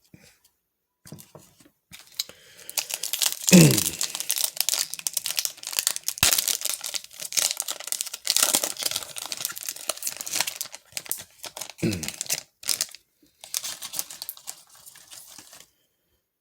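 Crinkling and rustling of a foil trading-card pack wrapper being handled and torn, with many small crackles. It goes in two stretches with a short pause between, and two brief low falling sounds come at about three seconds in and again near twelve seconds.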